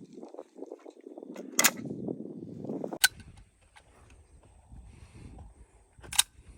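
Three sharp gunshots at an outdoor shooting range, about a second and a half, three seconds and six seconds in, with a muffled low rumble until the second shot.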